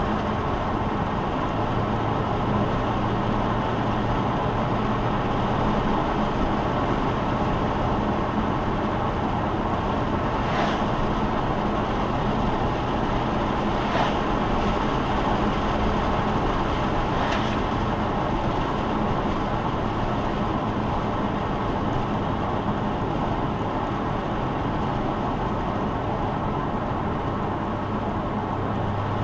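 A car cruising steadily, heard from inside the cabin: even tyre and road noise over a low, steady engine drone, with a few faint ticks.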